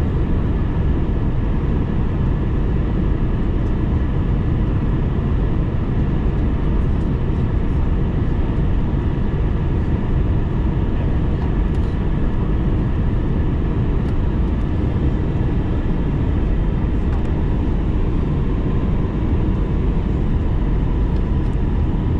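Steady cabin noise of an Airbus A321 airliner in flight: an even, low roar of engines and airflow with a faint steady hum above it.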